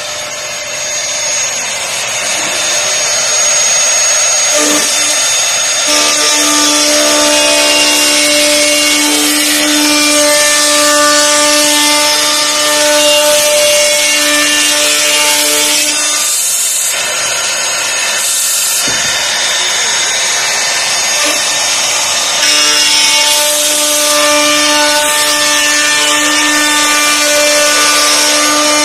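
CNC router spindle cutting a chair outline through a stack of bent plywood shells: a steady high whine over a loud, even cutting noise. The cutting tone fades for a few seconds about halfway through, then comes back.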